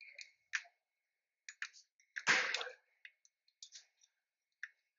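Scattered light clicks and taps from hand work on metal parts and tools under a car's engine, at an irregular pace, with one louder clatter a little over two seconds in.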